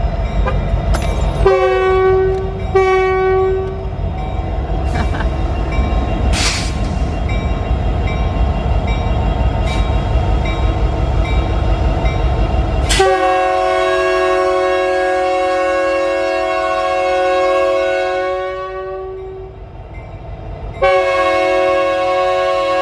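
Air horn of Canadian National diesel locomotives sounding a chord: two short blasts about a second and a half in, over a low rumble. A long blast starts about 13 s in and fades after some six seconds, then another long blast begins near the end. On North American railroads, two short blasts signal that the brakes are released and the train is about to proceed.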